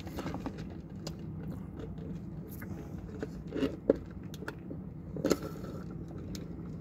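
Close-up mouth sounds of eating: chewing with small wet clicks, then sips of soda through a straw from a paper cup, with a few short louder gulps or slurps from about the middle on. A steady low hum runs underneath.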